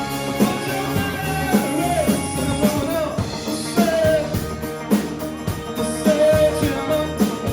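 Live rock band playing, with a drum kit keeping a steady beat under a wavering lead melody.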